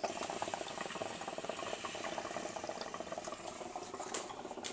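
Hookah water bubbling in a rapid, steady gurgle as smoke is drawn through the hose, with a brief click about four seconds in.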